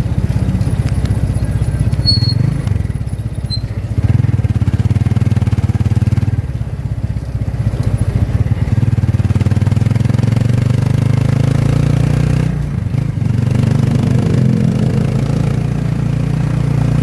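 Motorcycle engine of a Philippine tricycle running under way, a steady low drone with fine rapid firing pulses, its pitch shifting a little as it speeds up and eases off. The engine note dips briefly about three quarters of the way through.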